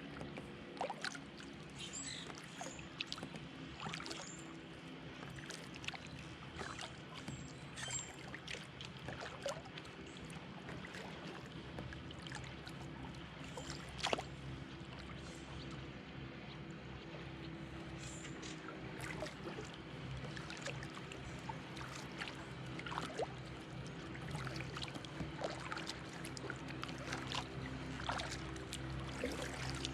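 Kayak paddling on calm water: irregular splashes and drips from the paddle, over a steady low hum.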